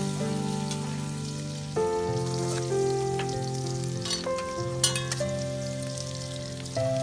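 Chopped food frying in hot oil in a pan over a wood fire, sizzling, with a metal spatula stirring and scraping the pan and one sharper scrape about five seconds in. Background music with sustained notes plays throughout.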